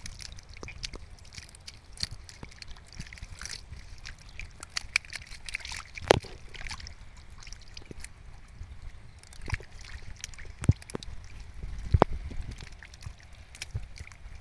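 Water sloshing and splashing, with scattered sharp knocks and clicks; the loudest knocks come about six, eleven and twelve seconds in.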